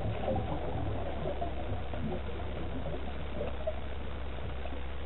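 Steady underwater rumble and hiss picked up by a camera submerged in a lake, with a constant low hum and faint gurgling that fades after the first second.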